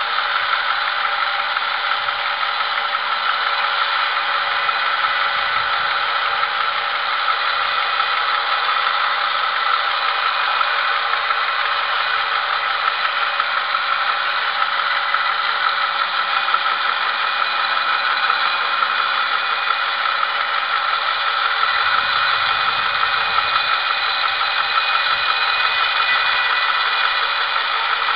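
Homemade bandsaw mill running and sawing lengthwise through a log: a steady, unbroken mechanical noise from the motor, band wheels and blade, with a few steady tones running through it.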